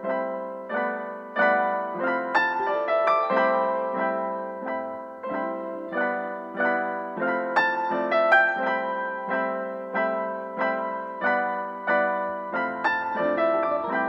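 Background piano music: notes and chords struck at a slow, even pace, each ringing and fading before the next.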